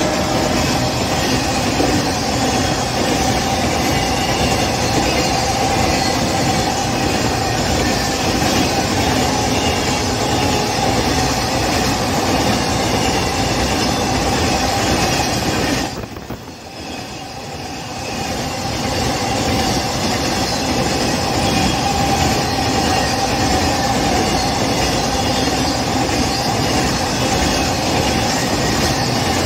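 A train of BTPN oil tank wagons running past at speed close by: a loud continuous rumble of wheels on rails with a steady ringing tone through it. About halfway through the sound drops away for a moment, then builds back up over a couple of seconds.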